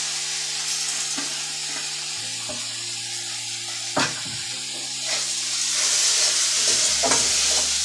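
Lentils sizzling as they fry in hot oil and spice paste in a steel kadai, with one sharp metallic knock about four seconds in.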